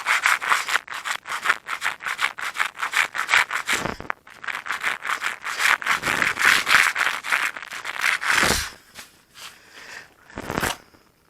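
Sandpaper rubbing back and forth along a balsa-wood leading edge in fast, even strokes, about five a second, sanding it down to the thickness of the guard tape. The strokes pause briefly about four seconds in, stop after about eight and a half seconds, and one short scrape follows near the end.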